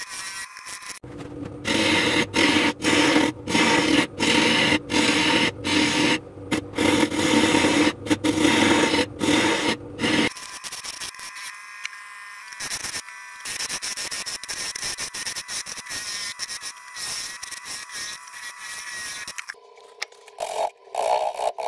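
Wood lathe turning a cherry burl and epoxy blank while a gouge cuts it: loud cuts broken by short pauses where the tool lifts off for the first half, then a steadier, quieter cut.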